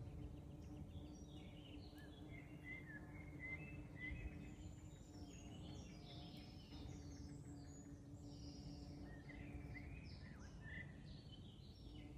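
Several forest songbirds singing faintly at once, short overlapping chirps and trills throughout, over a steady low hum and a low rumble.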